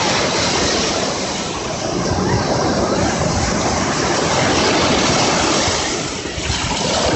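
Sea surf rushing steadily, the noise of waves washing in, easing a little about six seconds in.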